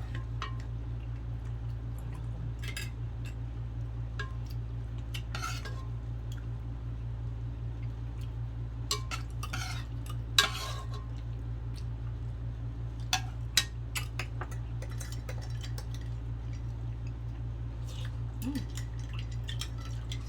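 Scattered clinks and taps of cutlery against dishes while eating, a dozen or so short sharp strikes spread unevenly, over a steady low hum.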